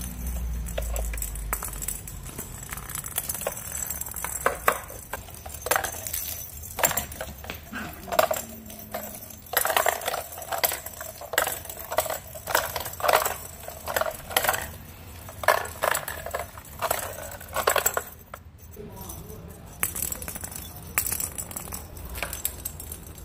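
Perforated plastic cat toy balls rattling and jingling in quick, irregular clicks as kittens bat them around a concrete floor, with a short lull about three quarters of the way through.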